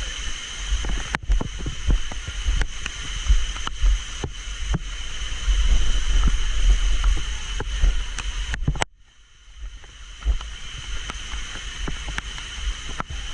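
Water rushing and splashing, with a heavy low rumble and frequent knocks from a handheld action camera being jostled. The sound drops away sharply for about a second, about nine seconds in.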